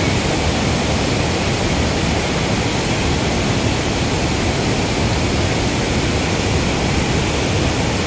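Spillway discharge below a dam: a heavy flow of floodwater rushing and churning over rocks, a loud, steady rush of water.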